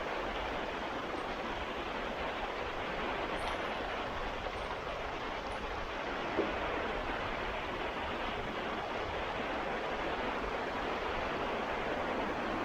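Baltic Sea surf washing onto the beach: a steady, unbroken rush of waves. A single short click about six seconds in.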